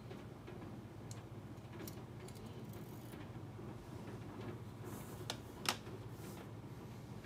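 Small metal parts of a WE Walther P38 airsoft pistol's lower frame clicking and ticking as the frame is taken apart by hand, with two sharp clicks a little past halfway, over a steady low hum.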